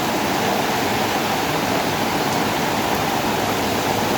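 Heavy rain pouring down, a steady, even hiss with no letup.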